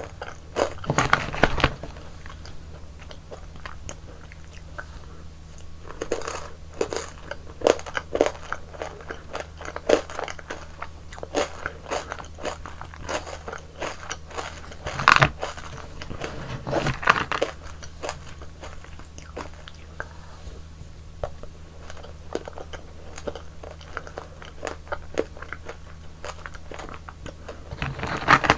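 Close-miked eating sounds of frozen yogurt ice cream: crisp bites and crunches in irregular clusters with chewing between them, the loudest bite about halfway through. A steady low hum runs underneath.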